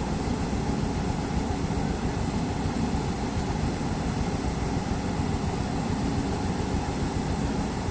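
A JCB excavator's diesel engine running steadily under load.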